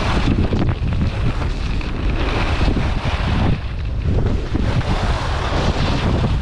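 Wind rushing over the microphone of a skier moving fast downhill, mixed with the scraping hiss of skis carving on hard-packed snow.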